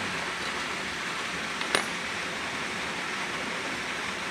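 Steady rush of flowing water, with a single sharp metallic clink a little under two seconds in.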